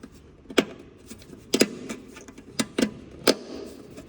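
Sharp clicks and knocks from a cooler door latch being handled as its small cap is pressed back into place. There are about six of them, scattered irregularly, with a pair close together near the middle.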